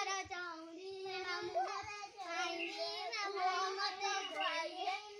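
A child singing a long, wavering chant, the voice held almost without a break.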